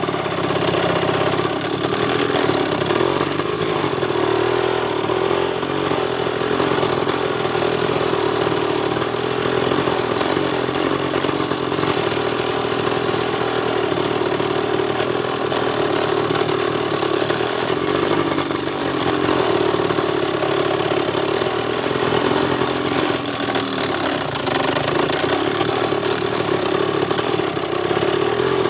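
Engine of an 'ojek galang' load-carrying motorcycle, fitted with a wooden frame, running steadily as the bike is ridden along a muddy trail, heard from the rider's seat. The note stays even throughout, dipping slightly in loudness a couple of times.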